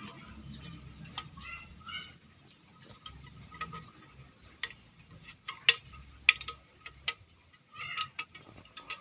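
Irregular sharp clicks and knocks, the loudest a little after five and six seconds in, with faint voices in the background.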